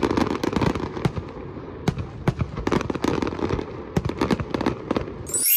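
Fireworks going off: a dense, irregular run of cracks and bangs over a continuous rumble. Near the end it stops abruptly and a bright chime rings out and fades.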